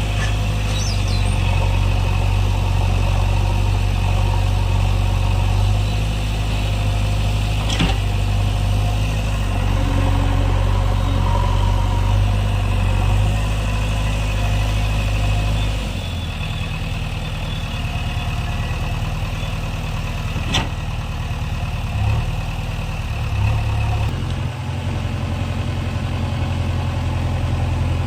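JCB backhoe loader's diesel engine running steadily under work, easing off a little over halfway through, with two sharp knocks along the way.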